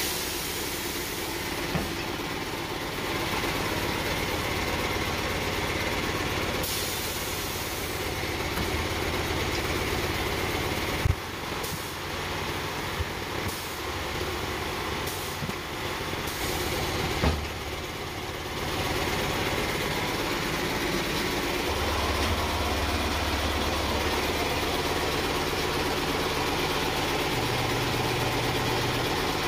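Steady engine running at idle, with a couple of sharp clicks or knocks about eleven and seventeen seconds in; the low hum grows heavier about twenty-two seconds in.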